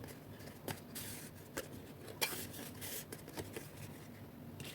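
Faint rustling and handling of cardstock pieces as they are pressed and lined up after gluing, with a few soft, scattered taps.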